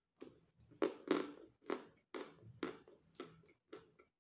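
A person chewing a mouthful of natural Volokonovka chalk: muffled, tender crunches, about two a second.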